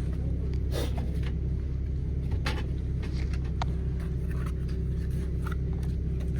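Light clicks and taps of plastic steering-wheel and paddle-shifter parts being handled, over a steady low hum.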